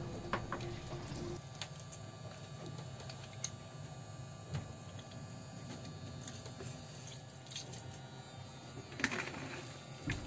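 Soaked bread being squeezed out by hand: faint wet squishing and dripping water, with a few light knocks.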